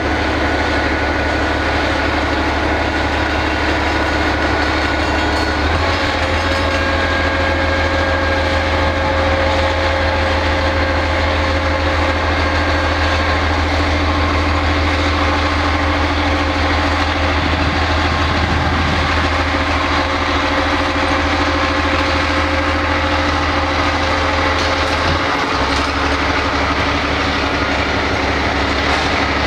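TGM4 shunting diesel locomotive with hydraulic transmission running under load as it hauls a string of freight wagons past. Its engine note steps up about six seconds in and drops back near the end.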